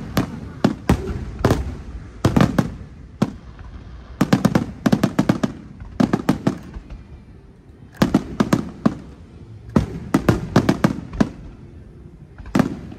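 Aerial fireworks shells bursting overhead: sharp bangs coming in quick clusters every second or two, with a low rumble lingering between the reports.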